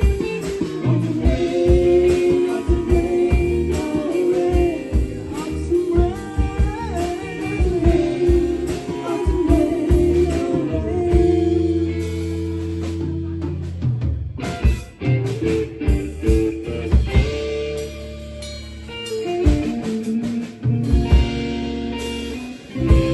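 Live band playing a slow song: singing over guitar, bass guitar and drum kit.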